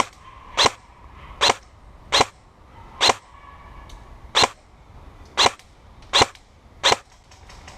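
Airsoft gun firing nine single shots, sharp pops at an uneven pace of roughly one a second.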